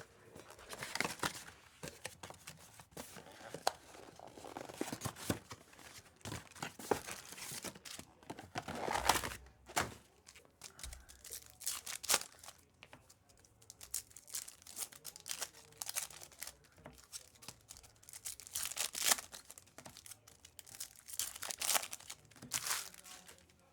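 Trading card pack wrappers being torn open and crinkled by hand: a run of irregular ripping and crackling rasps, some sharper and louder than others.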